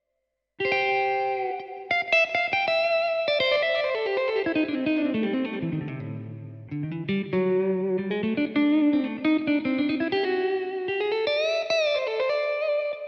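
Yamaha PSR-SX900 keyboard's electric guitar voice playing a melodic run after about half a second of silence. The line falls to low notes around six seconds in, climbs back up, and holds a note with vibrato near the end.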